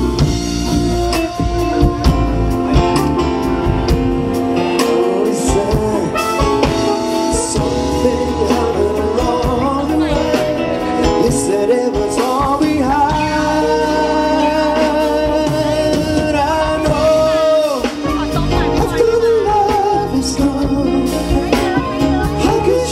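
Band music, with a melodic lead line held over several long notes about halfway through.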